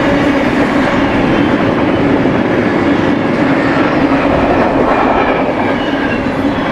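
Freight train cars rolling past: a loud, steady rumble of wheels on rail with a clattering of wheels over the track and a constant hum.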